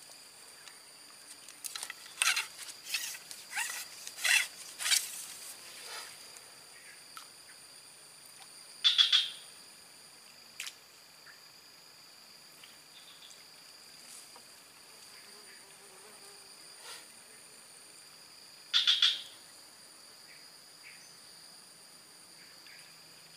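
Insects droning steadily at a high pitch. Over the drone comes a run of sharp clicks and rustles in the first few seconds, then a short, loud, rattling sound twice, about ten seconds apart.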